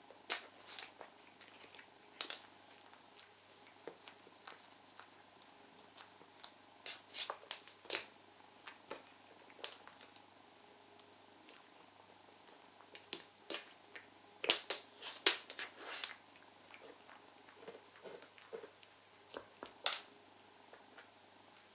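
A cat pawing and nosing at a shoelace on a laminate floor: scattered light clicks and taps. A cluster of louder taps comes about two-thirds of the way through, and a sharp tap near the end comes as it swipes with a paw.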